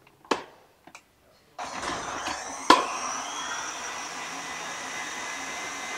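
KitchenAid stand mixer switched on about a second and a half in, its motor driving the food processor attachment with the shredding disc fitted, running empty with a steady whine. A sharp click comes about a second after it starts, and a light click near the start.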